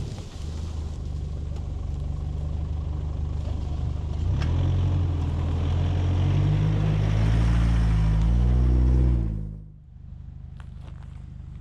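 4WD vehicle driving, its engine getting louder and working harder from about four seconds in, with a few quick shifts in pitch before the sound cuts off abruptly near the end.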